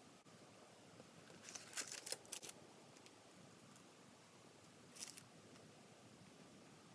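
Graphite pencil scratching on Bristol board paper in short quick strokes: a cluster of scratches about one and a half to two and a half seconds in, and one more about five seconds in, over a faint hiss.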